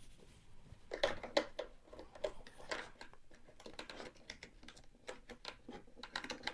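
Faint, irregular plastic clicks, taps and scratches of hands working a toy figure's shield accessory loose from its packaging fastening.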